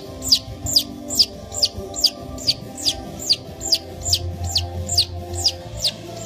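Baby chick peeping over and over, even short high peeps each falling in pitch, about two and a half a second, over soft background music.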